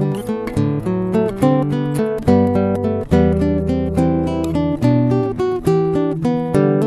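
Instrumental acoustic guitar music, with a quick run of plucked notes and chords.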